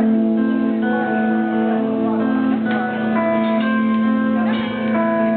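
Live band music: the instrumental intro of a song, a guitar-led melody of held notes changing about every half second over a steady low note.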